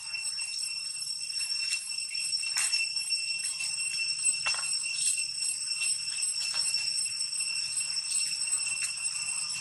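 Steady, high-pitched insect chorus droning without a break, with scattered faint clicks and a short falling call about four and a half seconds in.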